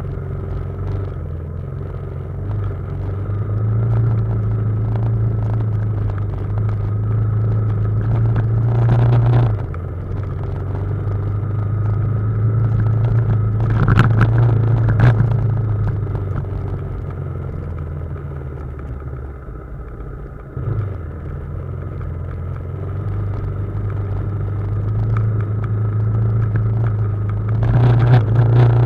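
BMW G310GS single-cylinder motorcycle engine running at low revs on a rough downhill trail, its rumble swelling and easing as the throttle changes. A few sharp knocks come through, about a third of the way in and again around the middle.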